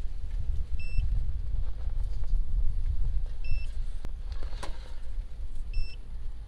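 A short electronic beep repeating about every two and a half seconds over a steady low rumble, with a brief scratching noise a little past halfway.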